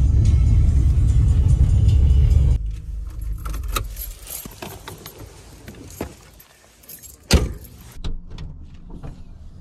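Loud low rumble of a van driving, which cuts off abruptly about two and a half seconds in. Then a much quieter stretch of scattered small clicks and rattles, with one sharp knock about seven seconds in.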